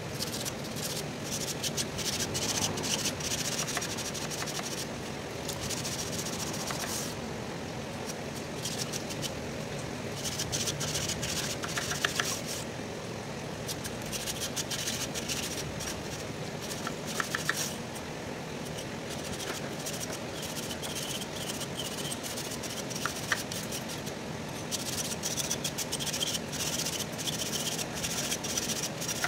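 A thin metal blade scraping between the tube ends of a truck radiator's header plate, clearing crusted grime. It comes in repeated bouts of rapid scratching a second or two long, with a few sharp clicks, over a steady low background noise.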